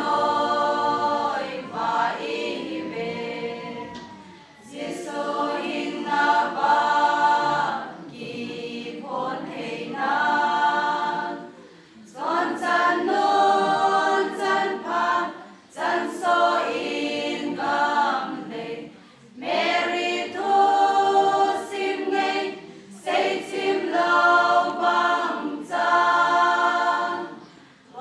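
Women's choir singing unaccompanied, several voices together, in phrases of about three to four seconds with short breaks between them.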